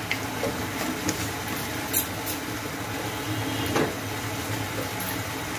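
Onion and tomato masala simmering in oil in a frying pan: a steady bubbling hiss with a few small pops.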